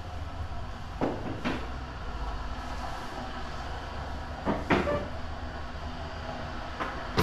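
Steady low rumble in a large hall, with a few short knocks and clatters: two about a second in and a couple more just past the middle.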